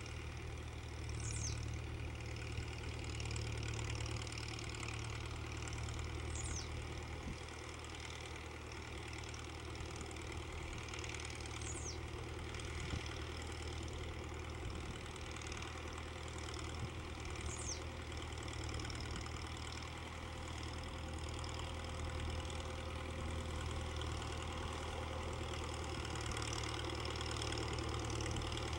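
Ford farm tractor's diesel engine running steadily at low speed as the tractor drives slowly. A short high whistle falls in pitch four times, about every five seconds.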